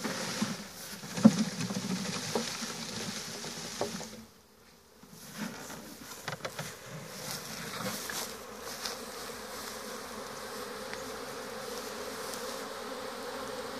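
Honeybee swarm buzzing as it is shaken from a tree branch into a wooden swarm box. Knocks and rustling over the first few seconds, the loudest a sharp knock about a second in, then a steady hum of bees flying around the open box.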